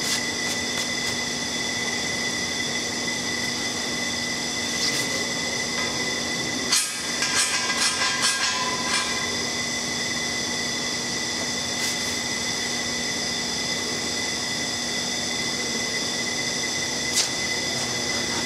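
Steady hum and hiss of workshop machinery, with several fixed whining tones held throughout. A short run of sharp clicks and knocks about seven to nine seconds in, and single clicks later.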